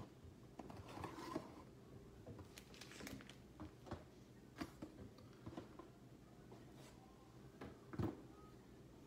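Cardboard trading card boxes being handled and set down on a table: scattered light taps and knocks, with the loudest knock about eight seconds in.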